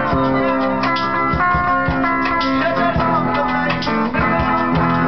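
Guitars played live, strummed and plucked in a steady rhythm, with chords held between the strokes.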